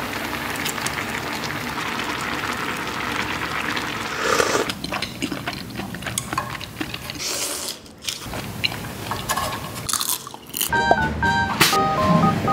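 Spicy seafood ramen broth simmering and bubbling in a cast-iron skillet, with scattered wet pops and clicks. About eleven seconds in, background music with short bright notes comes in.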